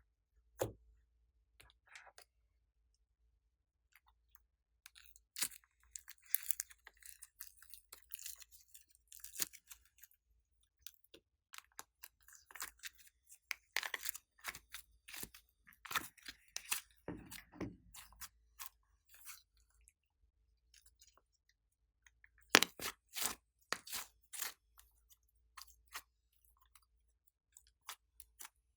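Glossy slime being worked by hand: scattered sticky clicks and crackles, coming thickly in stretches, with a run of louder, sharper pops about three quarters of the way through.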